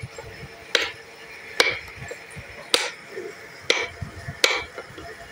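Small hammer tapping a steel carving chisel into a wooden box: five sharp taps about a second apart, each with a short metallic ring, as the design is cut into the wood.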